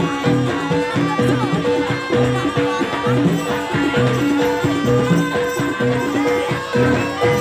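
Live traditional Javanese dance music from a small ensemble: a busy hand-drum beat under a held note that returns about once a second, with other pitched instruments layered above.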